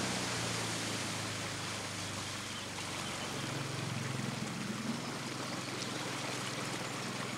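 Steady rushing, water-like noise with a low, steady motor hum underneath.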